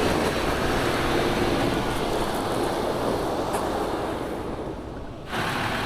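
Mercedes-Benz Unimog off-road truck driving, its diesel engine running under a dense, noisy rumble. The sound dips a little and then cuts abruptly to a different take about five seconds in.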